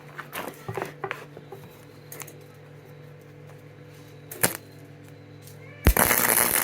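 A few light clicks and knocks of metal parts being handled, then, near the end, a loud crackling burst of an electric welding arc lasting under a second, like a short tack weld. A steady low hum runs underneath.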